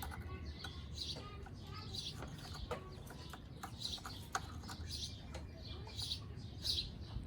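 Birds chirping in short, repeated calls, over a low steady background hum with a few light clicks.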